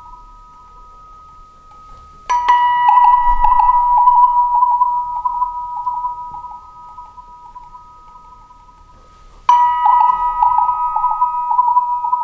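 Cristal Euphonic Instrument sounding through its resonator as an effects generator: two steady high tones ring on, and twice (about two seconds in and again about nine seconds in) a sudden bright onset sets off a fluttering, rattling buzz that fades over several seconds.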